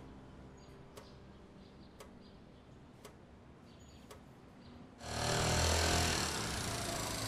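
Pendulum wall clock ticking faintly, about once a second. About five seconds in, loud traffic noise with a low engine rumble comes in suddenly.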